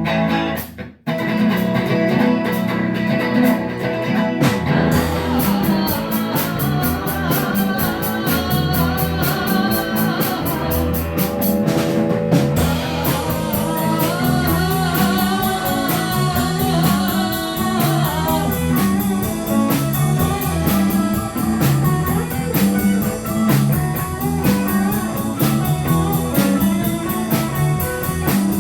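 A rock band playing, with electric guitar over bass and drums. There is a short break just under a second in before the band comes back in full, and a steady drum beat is clear from about five seconds on.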